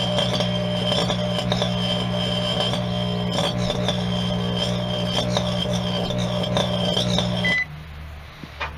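Broken microwave oven running: a steady transformer hum with a wavering high whine and sharp crackling from arcing at its burnt waveguide cover. It cuts off suddenly near the end with a short beep, followed by a single click.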